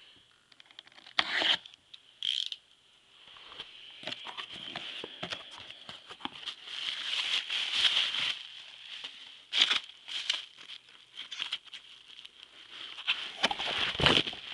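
A cardboard box's packing tape is slit with a utility knife, giving a couple of short, sharp rips. Then comes a long stretch of bubble wrap and cardboard crinkling and rustling as the contents are handled and unwrapped.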